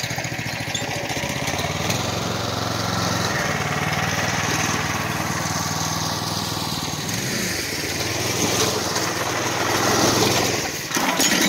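A Murray go-kart's 301cc single-cylinder engine, fitted with a stage 1 performance air filter, runs as the kart drives along the street. Its pitch rises and falls with the throttle, and it is loudest about ten seconds in as the kart passes close.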